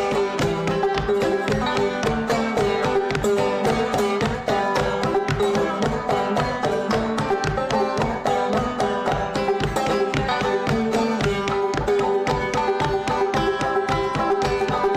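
Open-back banjo with a natural skin head played clawhammer style: a steady, fast rhythm of down-struck notes and brushed strums, with a drum-like thump from the head under each stroke.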